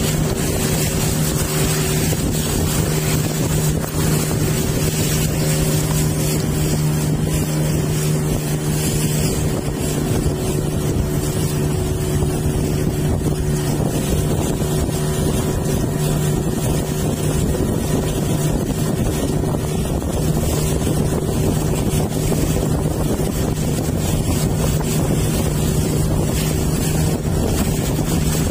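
Engine of a motorised river boat running at a steady speed under way, with a steady low hum. Wind buffets the microphone throughout.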